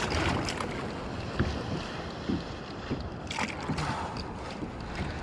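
Water splashing and sloshing around a kayak, with wind on the microphone and a few short knocks.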